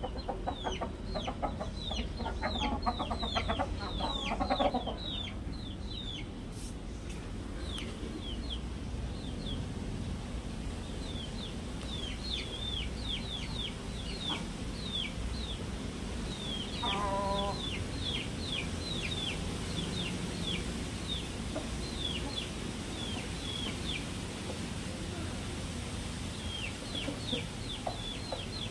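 Chickens in a yard clucking, with many short, high, falling chirps repeating throughout. There is a burst of louder calling in the first five seconds and a brief pitched call about seventeen seconds in.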